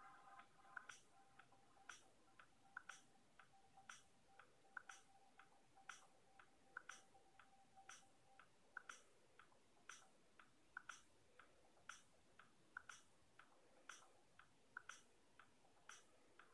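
Faint, regular ticking: a louder double tick about once a second with softer ticks in between.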